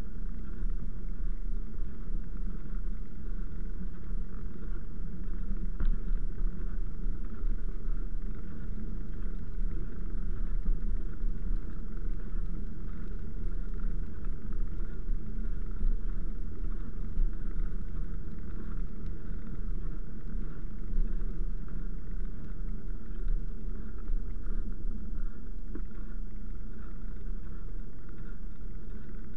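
Steady low rumble of a vehicle rolling along wet paving, with a faint steady hum above it and a few small knocks.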